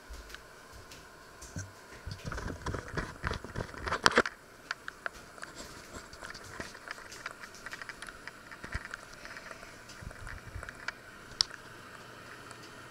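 Handling noise: a run of knocks, rubbing and rustling, loudest about four seconds in, then scattered faint clicks and crackles over a steady hiss, with one sharp click near the end.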